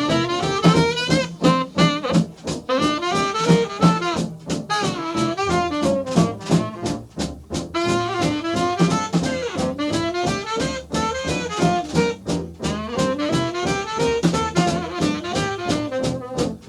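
Swing-era Kansas City jump blues band playing an instrumental break: horns carry a wavering melody over a steady swinging beat.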